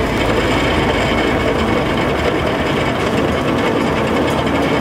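Stainless-steel electric grape destemmer-crusher running steadily while it strips and crushes bunches of wine grapes, a dense, even mechanical clatter.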